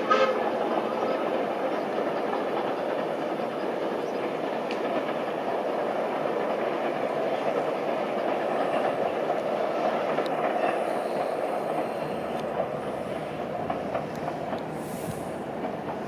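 Steam train hauled by a GWR 2-8-0T tank locomotive running along the line, a steady rumble of the train and its wheels that eases a little near the end. The last of a steam whistle sounds at the very start.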